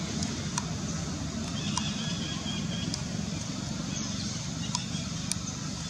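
Steady low outdoor rumble, with a few faint scattered clicks and a brief faint chirp about two seconds in.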